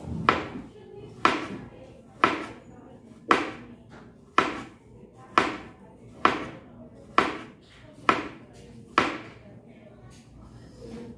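Chef's knife slicing a cucumber into rounds on a cutting board: about ten sharp knocks of the blade on the board, roughly one a second, stopping near the end.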